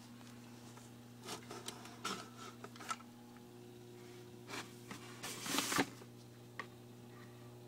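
Steady electrical hum from running aquarium equipment, with scattered rubbing and knocking noises on top. The rubbing and knocking come in short clusters, loudest about five and a half seconds in.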